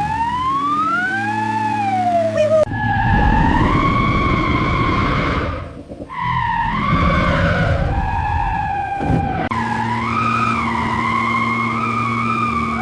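A wailing, siren-like tone that wavers slowly up and down in pitch over a steady low drone, with a brief break about halfway through.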